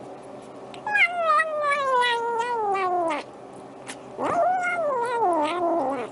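Kitten giving two long, drawn-out meowing calls while it eats from its food bowl. The first falls steadily in pitch over about two seconds; the second rises, then falls with a wavering pitch.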